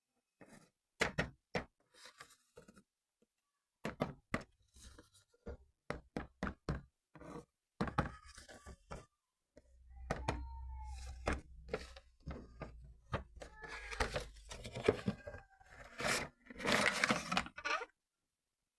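A toy car's cardboard box and packaging being handled and opened: irregular knocks and thuds, a low rubbing rumble with short squeaks midway, and tearing or rustling of packaging near the end.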